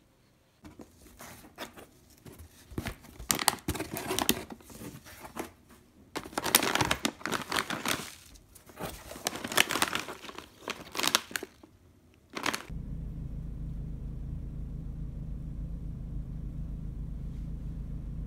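Plastic snack bags crinkling and rustling as a hand rummages through a box full of them, in uneven spells for about twelve seconds. Near the end the crinkling stops and a steady low hum begins abruptly.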